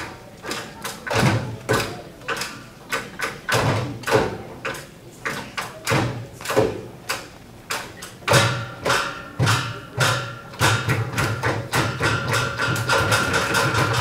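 Hand drums struck by a group of players, in loose, irregular hits rather than a steady beat. From about eight seconds in the hits come thicker, and a held pitched sound joins them.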